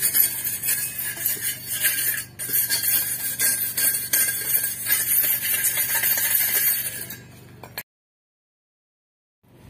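Hand wire brush scrubbing rust off a steel angle bar in rapid back-and-forth strokes, a harsh, high scratching with a short break a little after two seconds; it fades out about seven seconds in.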